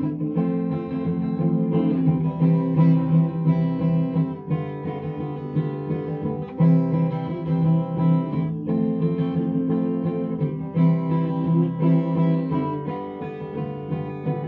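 Strummed guitar playing a chord progression, an instrumental interlude in a worship song, with the chords changing every two seconds or so.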